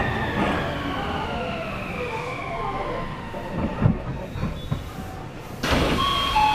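Odakyu 3000-series electric train set 3257F heard from inside the car, its motor whine gliding slowly down in pitch as it brakes toward a stop. Near the end a sudden loud rush of noise sets in, with short steady tones over it.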